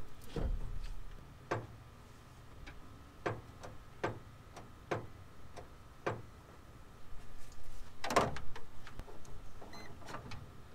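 Scattered clicks and metal knocks, one every second or so, from a battery being set into a pickup's engine bay and its terminals fastened, with a louder clatter about eight seconds in.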